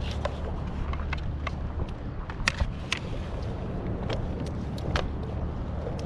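Steady low rumble of wind and water against the camera microphone on a kayak, with scattered sharp clicks and knocks, a few louder ones around the middle and one near the end.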